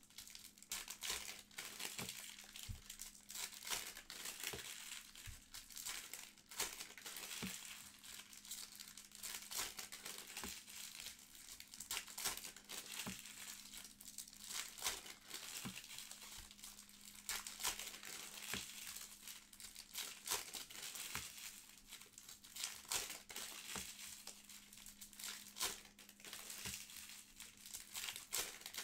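Trading-card pack wrappers being torn open and crinkled by hand, a dense, irregular stream of crackles and rips throughout. A faint steady low hum lies underneath.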